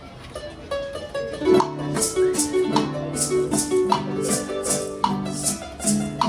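Instrumental bolero introduction on acoustic guitar and harp. About a second and a half in, a steady maraca rhythm joins the plucked strings.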